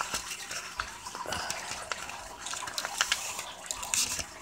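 A sheet of paper being folded and creased by hand: irregular rustling and crinkling with many small sharp crackles.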